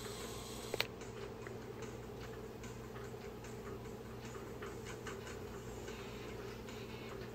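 Quiet indoor room tone with a steady low hum and faint, irregular light ticks and clicks; one sharper click about a second in.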